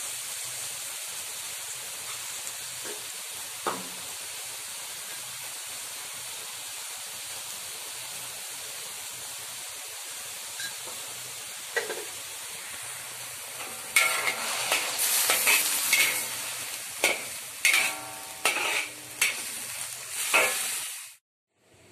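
Chicken and vegetables sizzling in a hot pan with a steady hiss, a metal spatula knocking against the pan now and then. From about two-thirds of the way in, the spatula scrapes and clatters against the pan in quick strokes, the loudest part. The sound cuts off abruptly near the end.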